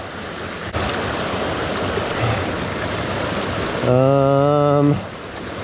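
Rain-swollen creek rushing steadily. About four seconds in, a man's voice holds one level-pitched sound for about a second.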